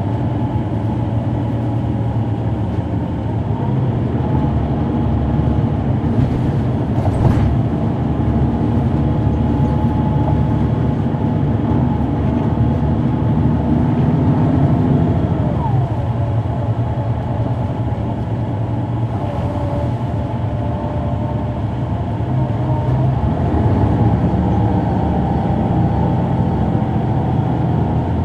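Cabin sound of a 2004 Neoplan AN459 articulated transit bus under way, its Caterpillar C9 ACERT diesel engine running steadily. There is a short knock about seven seconds in. The engine note drops around halfway through and climbs again near the end.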